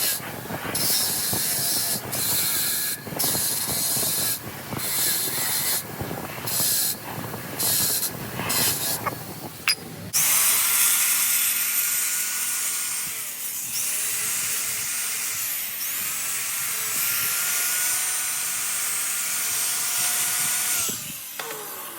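Repaired 12 V 2.2 kW Hitachi S13-407A starter motor for a Yanmar 482/486 engine being test-run. For the first ten seconds it is switched on and off in short bursts; then it runs continuously with a whine that wavers in pitch, and winds down about a second before the end.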